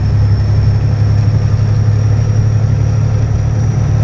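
Truck engine running steadily under way, a deep continuous drone with road noise, heard from inside the cab; a faint high whine runs above it.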